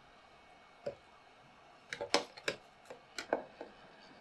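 A handful of light, sharp clicks and taps, one about a second in and a quick cluster through the middle: small tools being picked up and set down at an electronics workbench.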